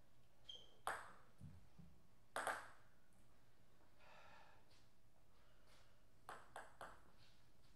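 Table tennis ball bouncing and clicking between points: sharp hard clicks about a second in and again around two and a half seconds, then a quick run of light bounces near the end as the ball is bounced before a serve.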